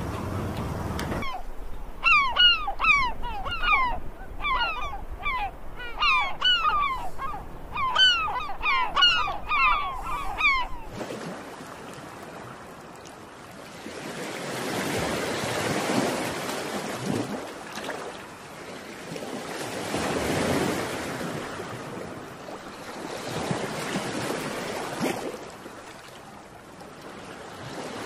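Birds calling in quick bursts of short notes, each sliding down in pitch, several a second, which stop about eleven seconds in. Waves then wash on the shore, swelling and fading about every four seconds.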